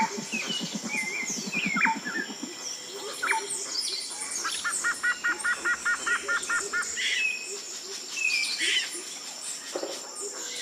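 Several birds calling and chirping over a steady high whine, with a low, fast pulsing call in the first couple of seconds and a quick run of about a dozen evenly spaced paired notes in the middle.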